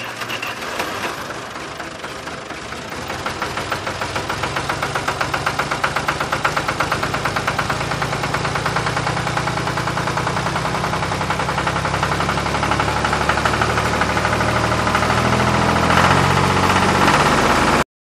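A motor running with a rapid, even knocking. It grows louder over the first several seconds, holds steady, and cuts off suddenly near the end.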